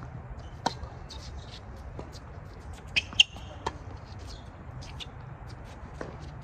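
Tennis serve on an outdoor hard court: a ball bounced on the court, then a sharp pop of the racket striking the ball about three seconds in, with a short squeak alongside it.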